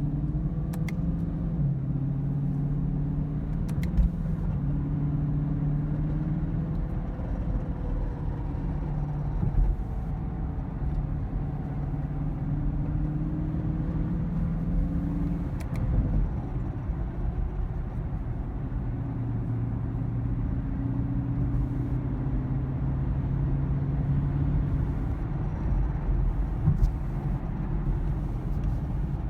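A 2016 Chevrolet Camaro SS's 6.2 L LT1 V8 running, a steady low rumble whose pitch drifts up and down, with a few sharp ticks heard now and then. This is the engine noise that the owner ties to a P0300 random-misfire code.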